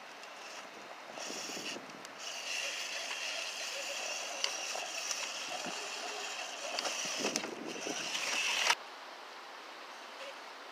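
Electric drive motor and gearbox of a New Bright 1:6 scale RC Hummer H2 whining as the truck crawls over rocks and mud. The whine starts about a second in, grows louder, and cuts off suddenly near the end, leaving a steady wind hiss.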